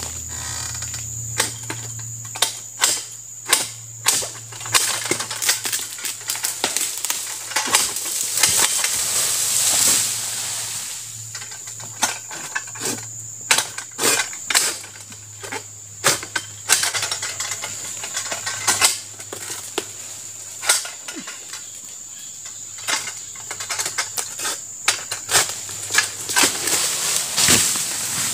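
Mechanical jerk-action palm harvesting sickle (egrek sentak) on a long pole hacking at an oil palm's frond bases and bunch stalk: irregular sharp clicks and knocks, at times several a second, over a steady high-pitched whine.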